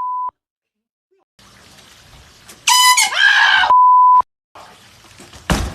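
The tail of a censor bleep, then a second of silence; about three seconds in, a sudden loud scream that is cut off by a half-second censor bleep. A single heavy thud near the end.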